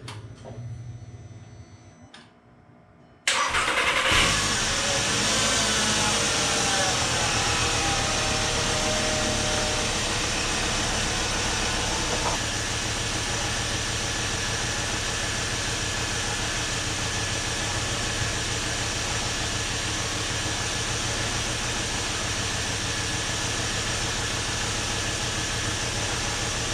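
Volkswagen Rabbit's 2.5-litre five-cylinder engine starting about three seconds in, on its first start after the rebuild and coolant fill, then idling steadily. A whine falls in pitch over the first several seconds as the idle settles.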